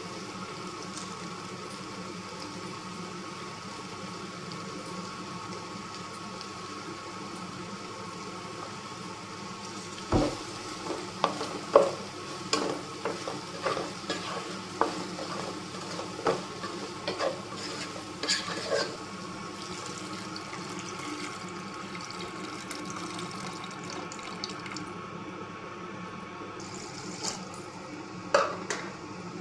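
Okra, tomato and spices sizzling in a nonstick pot. From about ten seconds in, a spatula stirs the okra, clicking and knocking against the pot for several seconds, with a few more knocks near the end.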